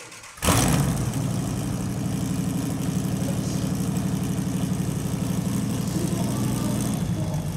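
The Millyard Viper motorcycle's Dodge Viper 8.0-litre V10 engine catches about half a second in and then idles loudly and steadily with a lumpy, pulsing beat.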